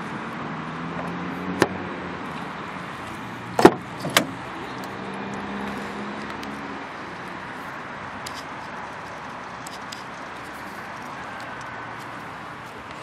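A 2008 Opel Corsa's fuel filler flap shutting with one sharp click, then the rear door's latch releasing with two loud clunks about half a second apart as the door is opened, over a steady background hum.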